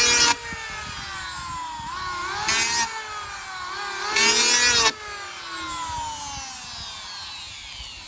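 Electric hand planer shaving the edge of a wooden casement sash, set to a light 1/32-inch cut. There are three short, loud cutting passes: one just at the start, one about two and a half seconds in and one just past four seconds in. Between them the motor's whine sags and picks up again, and after about five seconds it winds steadily down.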